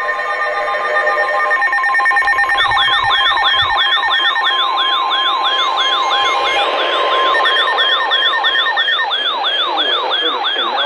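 Emergency alert tones from several receivers sounding at once. Steady alert tones are joined about two and a half seconds in by a fast siren-like warble that repeats about three times a second.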